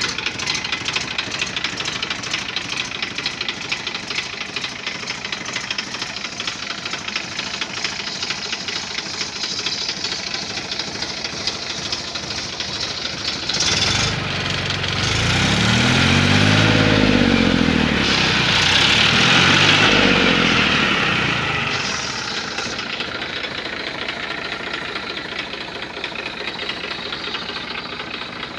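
TAFE 1038 DI Tonner tractor's diesel engine idling with a steady knocking rhythm. About halfway through it is revved up and let fall back twice, then settles to idle again.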